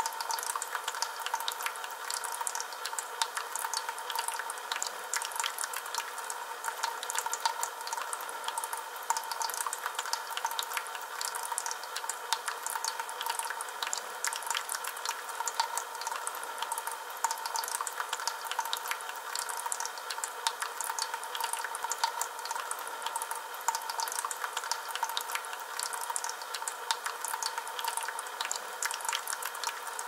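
Water from a small metal tiered fountain trickling and splashing steadily off its metal lotus leaves into a pebble-filled metal basin, a continuous patter of many small drops.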